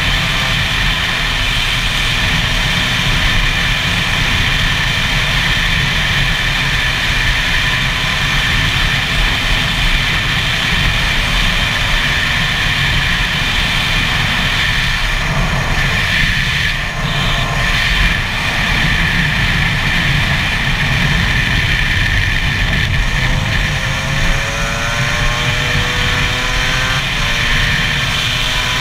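Gas Gas EC SMR 125 two-stroke single-cylinder engine running at steady road speed, with heavy wind rumble on the helmet camera. The note drops away briefly about halfway, then rises in pitch several times near the end as the bike accelerates.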